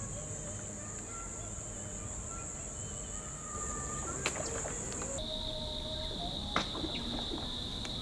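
Steady chorus of insects trilling in one continuous high tone. About five seconds in it switches abruptly to a lower-pitched steady insect trill, with a few faint clicks.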